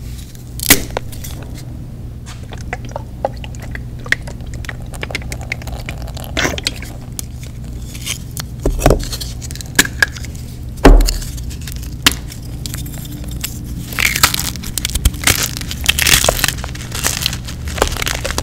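Dyed gym chalk blocks snapped apart by hand, giving several sharp cracks, then crumbled and crushed between the fingers with crunchy, gritty crackling near the end.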